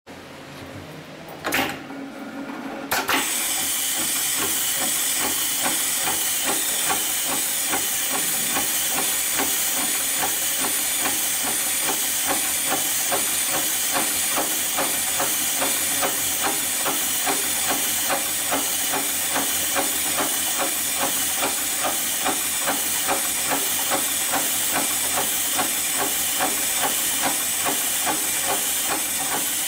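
Heavy-duty industrial rope sewing machine starting about three seconds in, after a sharp clack, and then stitching steadily: a rapid, even clatter of needle strokes over a steady hiss.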